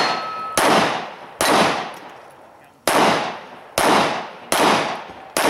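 Pistol shots fired on a practical-shooting course: six sharp shots at uneven spacing, with a longer pause after the second, each followed by a long echo.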